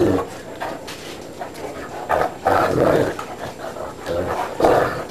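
A Great Dane puppy and a Cirneco dell'Etna play-fighting, with short bursts of dog growling about two seconds in, again at two and a half to three seconds, and near the end.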